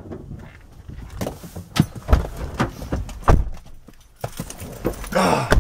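Handling noises of people climbing into a car: clicks and knocks, with two heavier thumps of car doors shutting about two and three seconds in. A louder rustle comes near the end.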